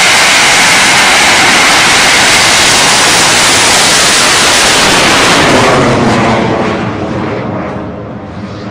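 Large homemade Thai bamboo-style rocket (bang fai) launching from its tower: its black-powder motor makes a loud, steady rushing hiss that holds for about five seconds and then fades away as the rocket climbs out of range.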